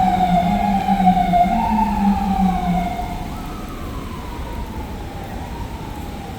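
Emergency vehicle siren wailing on a city street, wavering in pitch over a low steady tone. About three seconds in the louder part stops and a fainter wail slowly falls away.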